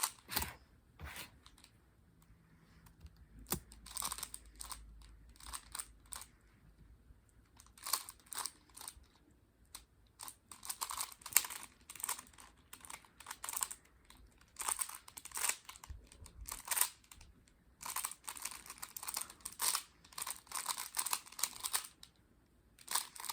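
Plastic 3x3 Rubik's cube being turned fast during a speed solve: rapid clicking and clacking of the layers in bursts, with a quieter pause early on and the densest run of turns near the end.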